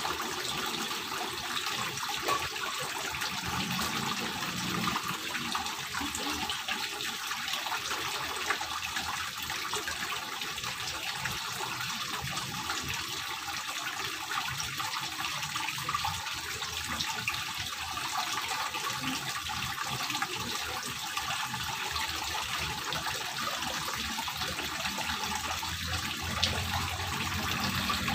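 Water from a stone wall fountain splashing steadily into a small garden pond.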